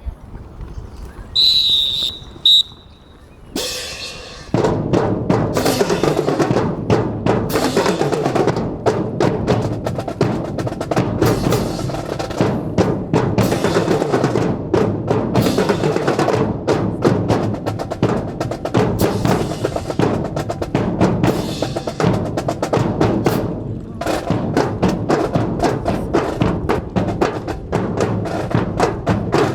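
A whistle blows about a second in, with a short second blast just after. Then, from about four and a half seconds, a marching band's drum section starts up: snare and bass drums play a dense cadence with the band.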